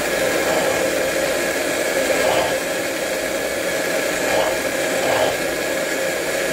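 Countertop blender motor running steadily at speed, blending a thick avocado-and-spinach green smoothie.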